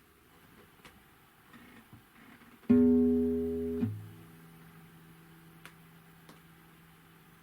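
Guitar's sixth (low E) string plucked once at its midpoint over the 12th fret, the other strings muted, giving a plain, jaw-harp-like tone dominated by the fundamental. About a second later a finger touches the string's midpoint node and the tone stops abruptly, leaving only a faint octave harmonic ringing on. A few light finger clicks come before the pluck.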